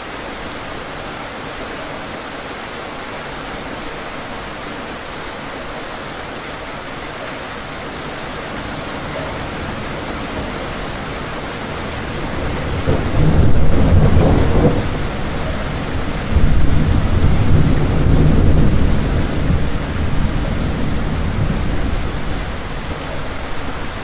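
Heavy rain falling steadily, with a long roll of thunder that builds about halfway through, peaks, surges a second time and then rumbles away slowly under the rain.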